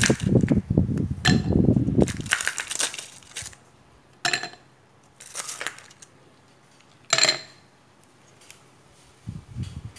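Ice cubes dropped into a drinking cup, clattering against one another in the first couple of seconds, then landing one at a time with several separate sharp, briefly ringing clinks.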